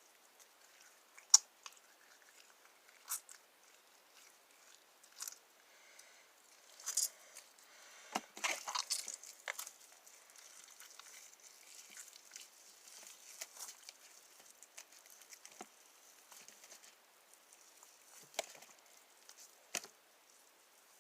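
Homemade glue-based slime being squished and pulled in the hands: scattered sharp sticky pops and clicks, the loudest about a second in, with a denser run of crackling squelches around eight to ten seconds in.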